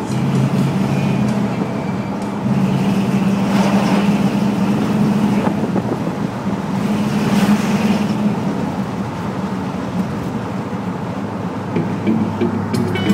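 1966 Chrysler 300's 383 cubic inch V8 running steadily while the car cruises, heard from inside the cabin with road and wind noise. The noise swells about seven seconds in as an oncoming lorry goes past.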